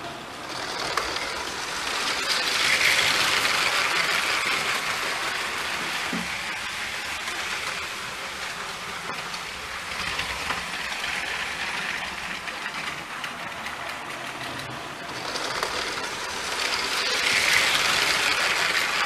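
Plastic LEGO trains running on plastic LEGO track, a steady rattling hiss of wheels rolling over the rails. It swells three times as trains come past and is loudest near the end, when container wagons go by right beside the microphone.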